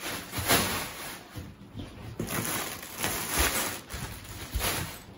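Clear plastic packaging rustling and crinkling as it is handled, in uneven bursts, with a few dull thumps.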